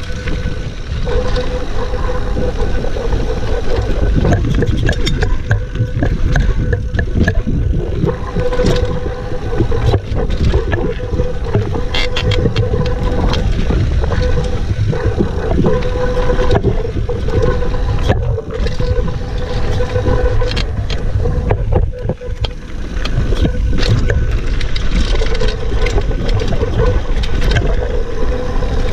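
Mountain bike riding down a dirt singletrack: wind rushing over the chest-mounted camera, tyres rolling over dirt and the bike clattering over bumps, with a humming tone that comes and goes.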